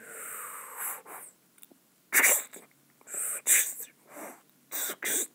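A person making breathy, hissing mouth sound effects for the action: a run of short, separate bursts of hiss, the first one longer.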